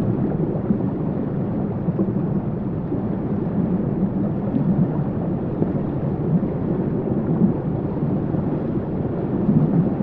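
Steady low rumbling rush of flowing river water, even and unbroken, with no distinct events.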